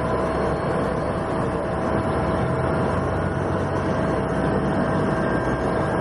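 Steady drone of a Cessna 208B Grand Caravan's Pratt & Whitney PT6A turboprop engine and propeller, heard inside the cabin, with a constant whine over the noise.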